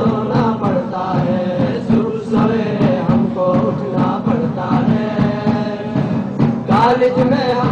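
Qawwali singing: voices sing a drawn-out melodic line over a steady low drone, with a regular percussion beat.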